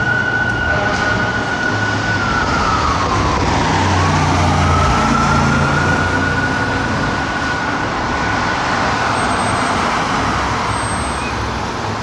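Fire engine siren wailing over city traffic noise. It holds a high tone, drops and climbs back about four seconds in, holds again, and fades out after about nine seconds. A low heavy-engine rumble passes in the middle.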